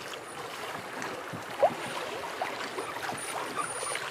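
Fast-flowing river water rushing past and lapping against a small boat's hull, a steady wash with small splashes and ticks, and one brief sharper sound about a second and a half in.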